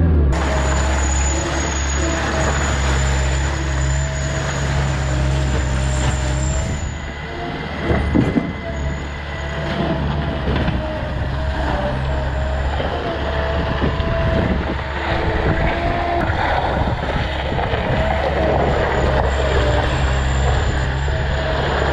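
Bobcat skid steer's diesel engine running steadily, with a few knocks about eight seconds in.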